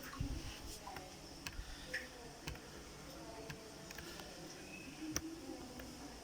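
Irregular light clicks from a laptop being operated, a few scattered single clicks spread across several seconds.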